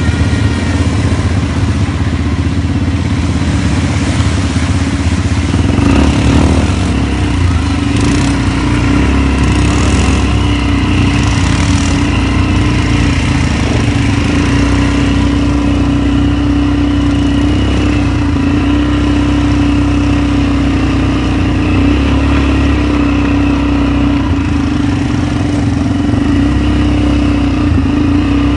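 ATV engines running steadily while the quads ride along a rough trail, a constant droning hum that holds one pitch, with a few brief rushes of hiss now and then.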